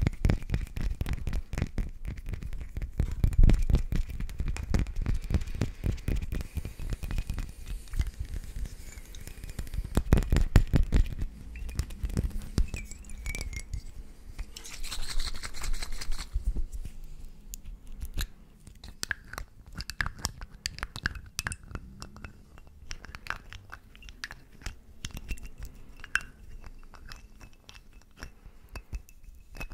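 Fingertips and nails tapping rapidly on small glass bottles held right against the microphone, dense and close for the first half. Later the taps turn slower and more scattered, as separate clinks.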